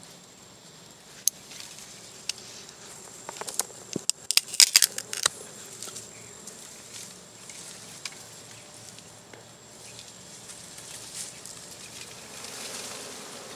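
Dwarf honey bees humming around their exposed comb, over a series of sharp snaps and crackles from the dry reed stems as the nest is cut free. The cracks are loudest in a quick cluster about four to five seconds in.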